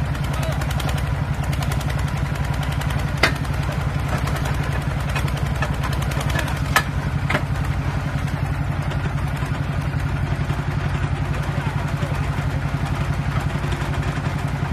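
The tractor engine of a DFT-450 tractor-mounted drilling rig runs steadily under load, with a fast even pulse. A few sharp metallic clanks come through, one about three seconds in and two close together around seven seconds in.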